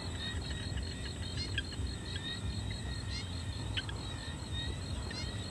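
Night insects, crickets among them, trilling in a steady, evenly pulsing high note, with scattered short chirps and a low rumble underneath.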